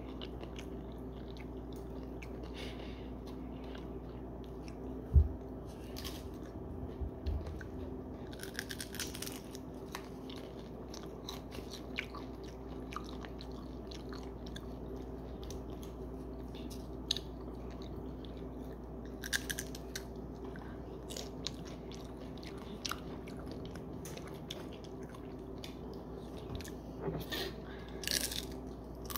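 Close-up chewing and crunching of a crunchy Takis taco, with scattered crisp bites and a few louder crunch clusters. A single thump about five seconds in, over a steady faint hum.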